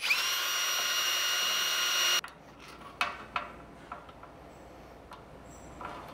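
Ryobi One+ 18V cordless drill running at speed while it drills through the drill press's head casting. It runs steadily with a high whine, then stops suddenly about two seconds in. A couple of light knocks follow about a second later.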